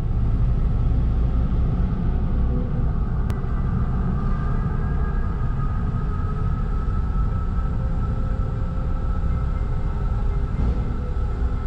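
Steady low rumble and drone of a car moving slowly across a ferry's enclosed car deck, with a few steady humming tones above it. One sharp click about three seconds in.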